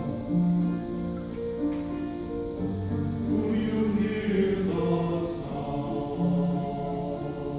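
A church choir singing a sacred cantata with instrumental accompaniment, in long held chords that move from note to note.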